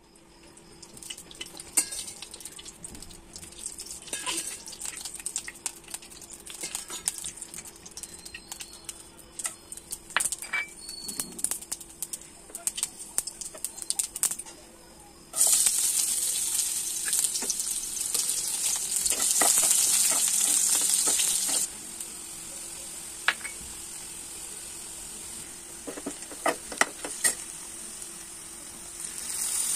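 Whole spices and a bay leaf crackling and sizzling in hot oil in a non-stick wok, with sharp pops and spatula clicks. About halfway through, a much louder hissing sizzle starts as sliced onions hit the oil, settling after a few seconds into steadier frying as the onions are stirred with a spatula.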